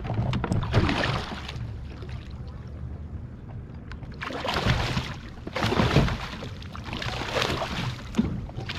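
Water splashing and sloshing in bursts around a large landing net held against the side of a kayak, with a musky in the net. A low wind rumble on the microphone runs underneath.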